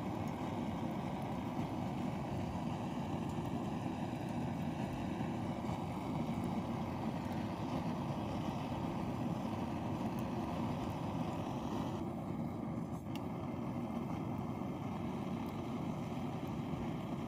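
Gas torch on a butane cassette canister burning with a steady rush of flame, blown onto lumps of charcoal to light them.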